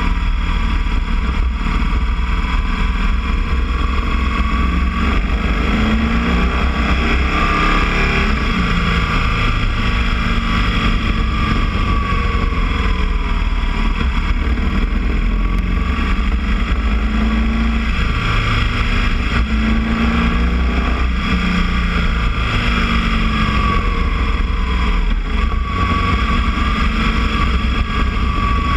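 Boxer-twin motorcycle engine running under way, its pitch drifting gently up and down with the throttle.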